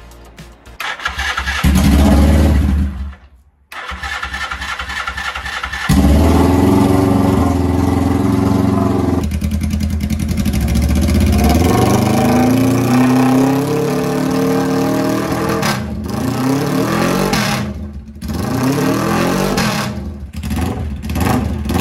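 Suzuki GS motorcycle engine started: it fires about a second in and cuts out about three seconds in, then is started again and runs. Through the second half the throttle is blipped several times, the pitch rising and falling with each rev.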